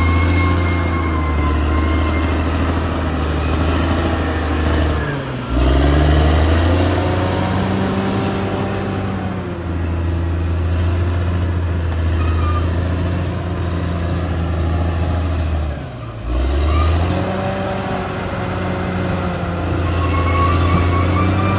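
Caterpillar D6R XL bulldozer's diesel engine running under load with a high whine over it. The engine briefly drops in pitch and loudness twice, about five seconds in and again near sixteen seconds, then picks back up.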